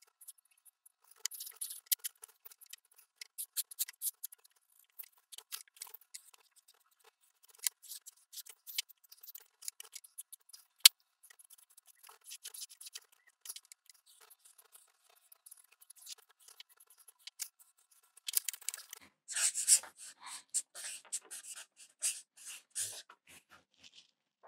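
Black marker drawing on a large paper pad: short, irregular strokes scratching and squeaking across the paper, with one sharp tick about halfway through. The strokes come faster and louder for several seconds near the end.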